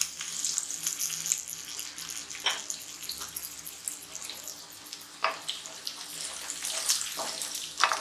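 Boiled peanuts and potato cubes sizzling in hot oil in a kadhai: a steady crackling hiss with a few sharper pops.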